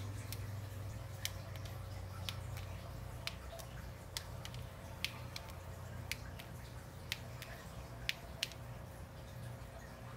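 Small sharp clicks, about one a second with slightly uneven spacing, from something unseen near the kitchen floor that is suspected to be a Mexican jumping bean. A steady low hum runs underneath.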